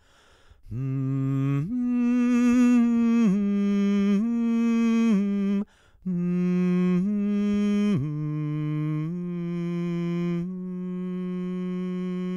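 A lone voice sings a slow, wordless melody of long held notes that step up and down, breaking off briefly twice. The last note is held longest.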